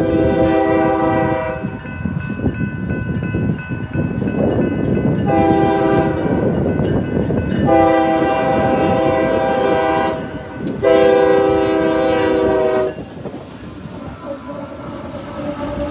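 BNSF diesel freight locomotive sounding its horn in four blasts, the third the longest, as it approaches. Then the locomotive rolls close past, engine rumbling and wheels clattering on the rails.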